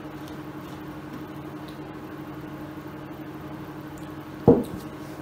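Steady low indoor hum, like a running appliance, with one dull thump about four and a half seconds in.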